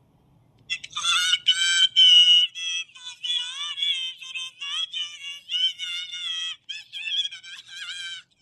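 A human voice electronically pitched far up to a squeaky, chipmunk-like voice effect, singing and babbling fast in short wavering phrases. It starts about a second in.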